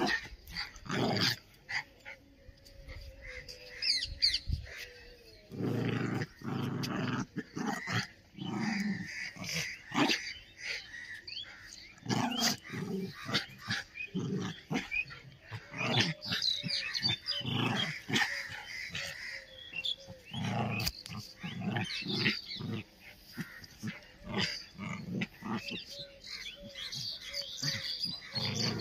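Two Indian Spitz dogs play-fighting, growling and snarling at each other with the odd bark, in short irregular bursts all through.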